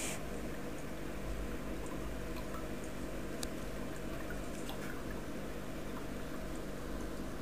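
Steady low hum of a turtle tank's water filter running, with a few faint drips and ticks of water.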